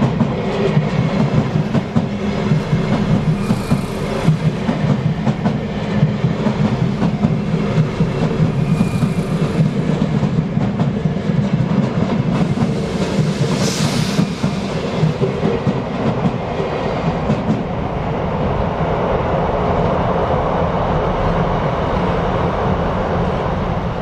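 Sotetsu Line electric commuter train passing close by a level crossing: a steady rumble of wheels on rails with rhythmic clickety-clack over the rail joints. Three brief high-pitched hisses come in the first half, and the sound turns smoother towards the end.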